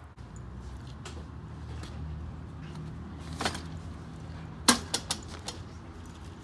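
Sports and camping gear being loaded into a collapsible fabric wagon: a brief rustle, then a sharp knock and a few smaller clicks as items and folding chairs go in, over a steady low rumble.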